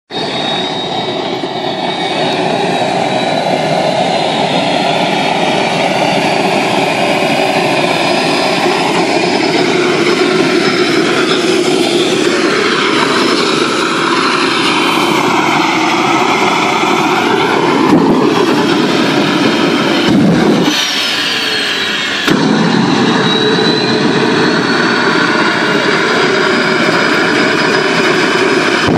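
Small jet turbine engine on a go-kart running loudly: a steady rushing noise with a high whine that climbs slowly in pitch. The level dips briefly about twenty seconds in, then jumps back up suddenly.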